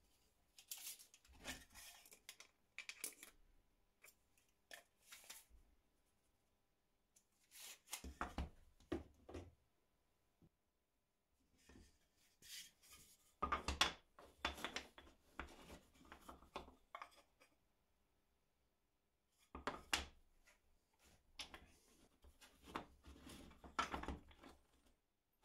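Quiet hand work on pieces of wood: light scraping, rubbing and clicking, in four bursts separated by pauses of a second or two.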